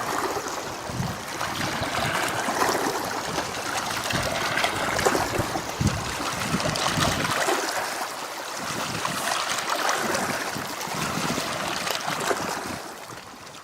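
Small sea waves lapping and trickling at the shore, with wind buffeting the camcorder's built-in microphones in irregular low thumps during the first half; the sound fades out near the end.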